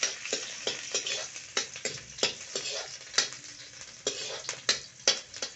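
Steel ladle scraping and clinking against an iron kadhai, in irregular strokes about three a second, as sliced onions are stirred and fried in a little hot oil. The oil sizzles steadily underneath.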